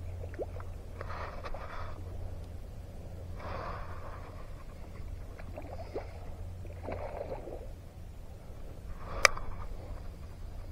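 A hooked redfish splashing and thrashing at the surface of shallow water in a few short bursts, over a low steady rumble. A single sharp knock about nine seconds in is the loudest sound.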